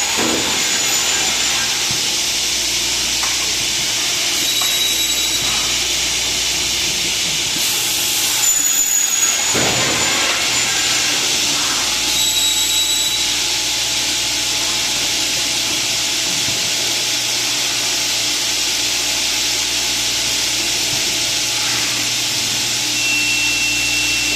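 Kaban SB 3011 PVC window-profile machining center running with a steady loud rush. High-pitched spindle whines come and go as it drills and mills the profile. A louder cutting pass comes about nine seconds in, and a steady high whine starts near the end.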